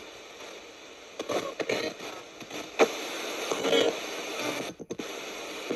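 Ghost-box radio sweeping through stations: steady static hiss broken by short, chopped snatches of broadcast sound, with a brief sudden dropout near the end.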